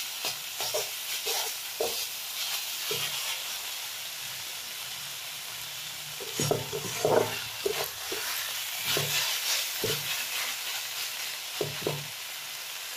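Bethua (bathua) greens frying in oil in a metal kadai with a steady sizzle, their released water cooked off, while a wooden spatula stirs them and scrapes and knocks against the pan at irregular moments, most often about halfway through and again near the end.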